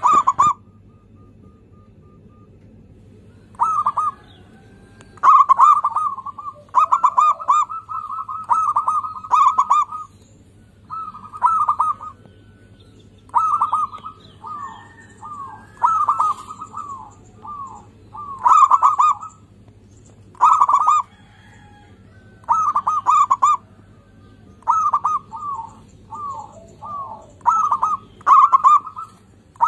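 Zebra dove (perkutut) singing: runs of short, rapid, rolling coo notes in bursts of about half a second to a second, repeated every second or two with brief pauses. A faint steady low hum lies underneath.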